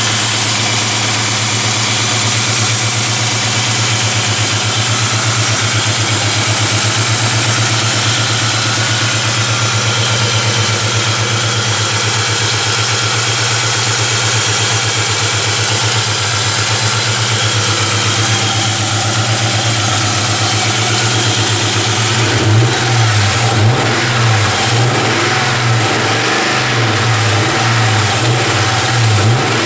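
Car engine idling cold on oil treated with Slick 50, with the cold-start slapping noise, which the owner wonders is valve noise or piston slap, now barely audible. About three-quarters of the way through, the engine note starts wavering up and down.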